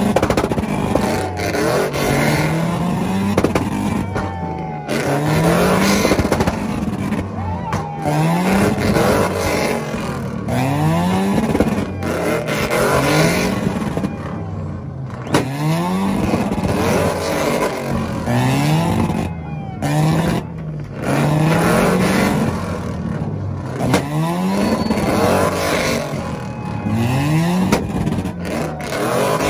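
A car engine revved over and over, each rev rising in pitch and dropping back, about once every two seconds, with sharp cracks mixed in.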